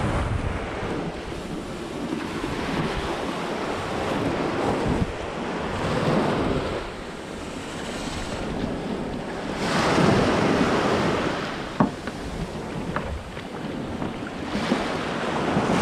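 Small surf waves washing in and out over a sandy shore, swelling and falling every few seconds, with wind buffeting the microphone. One sharp knock about twelve seconds in.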